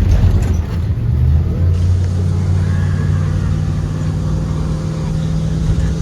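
Ford 7.3L gasoline V8 of a Blue Bird Vision school bus running while the bus is under way, heard from inside the bus as a loud low drone. A steady hum joins in about two seconds in.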